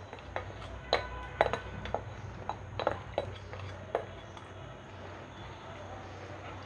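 A plastic slotted spatula tapping and scraping against a plate as a spice paste is scraped off into a pan of hot oil: a string of light clinks and knocks over the first four seconds, then quieter.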